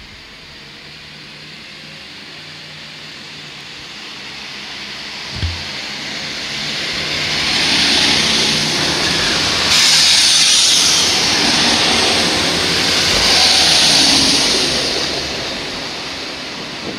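Passenger trains passing along a station platform: a rising rush of wheel and rail noise as the first train rolls by close, then, after an abrupt change about ten seconds in, a second train's hiss swells and fades as it passes and pulls away. A short low thump about five seconds in.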